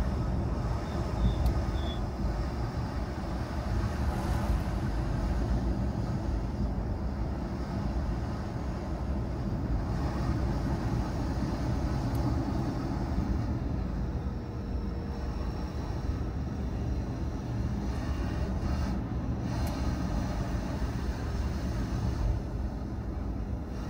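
A car driving along steadily, with engine and tyre-on-road noise.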